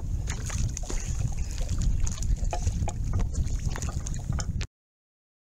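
Wind buffeting a boat-mounted camera's microphone in a gusty low rumble, with small knocks and water splashing against the boat. It cuts off suddenly near the end.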